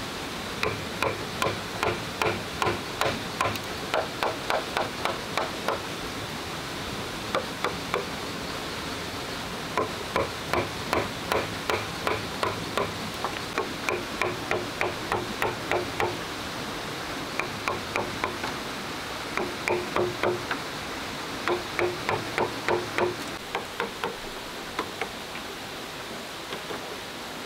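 Wooden mallet knocking on the back of a machete to split a green bamboo pole: runs of sharp strikes about two or three a second, each with a short hollow ring, broken by pauses. A stream rushes steadily underneath.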